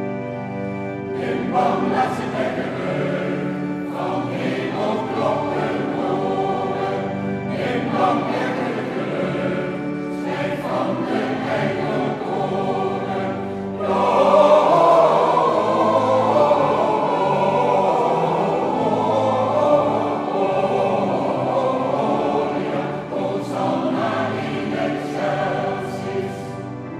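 Mixed choir singing in a church, the voices growing fuller and louder about halfway through.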